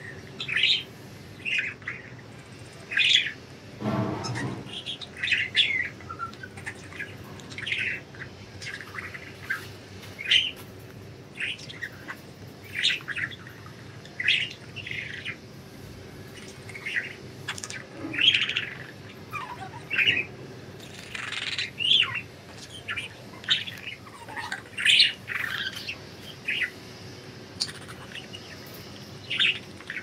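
Budgerigars chirping: short, high chirps about once a second, with some harsher squawks among them.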